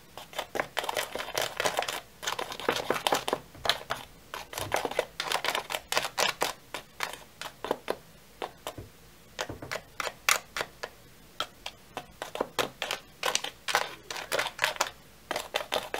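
Plastic fork rapidly clicking and scraping against a plastic tray while whipping a foaming candy-powder mixture, several quick clicks a second with a short break about twelve seconds in.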